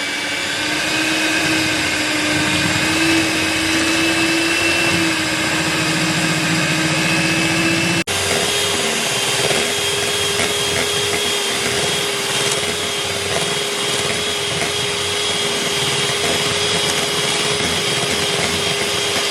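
Electric hand whisk running steadily as it beats hard, chilled clarified butter toward a light, fluffy texture. About eight seconds in it breaks off for an instant and carries on at a higher pitch.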